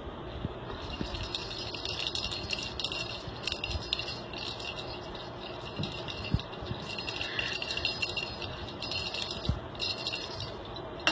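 A cat's small toy ball rattling in short bursts, again and again, as the cat bats it about, with a few dull thumps.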